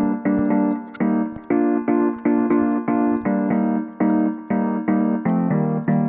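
Background music: a keyboard playing short repeated chords in a quick, steady rhythm, about four a second.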